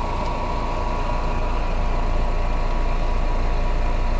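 A steady mechanical hum of running machinery, with a constant whine near 1 kHz over a low drone.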